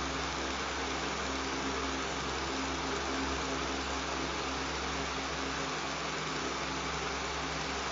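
Electric fan running steadily: a constant whooshing rush of moving air with a low motor hum underneath.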